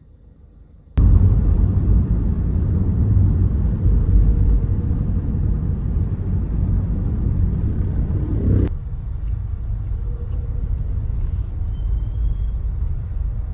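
Steady low rumble of a moving road vehicle, starting abruptly about a second in and dropping slightly in level at a cut about nine seconds in.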